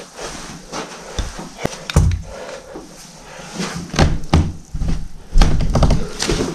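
A heavy wooden door being handled and worked open: a series of knocks and dull thuds, the loudest near the end.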